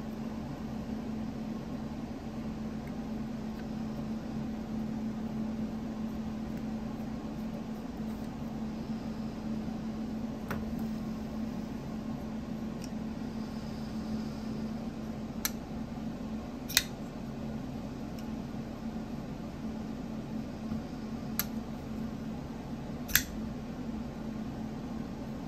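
Small, sharp metal clicks from handling a folding knife and a small driver during reassembly, about half a dozen spread out, the loudest two about two-thirds in and near the end, over a steady low background hum.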